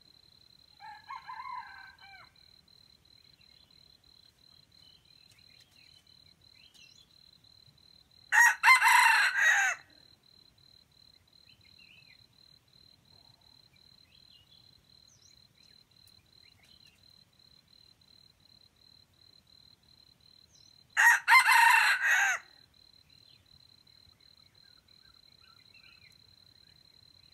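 Red junglefowl rooster crowing twice, each crow about a second and a half long and roughly twelve seconds apart, with a fainter, shorter call about a second in.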